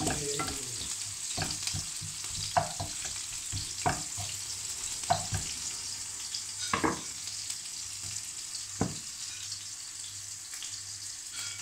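Sliced onions sizzling steadily in hot oil in a frying pan, with a few short sharp knocks and scrapes as a wooden spoon stirs them against the pan.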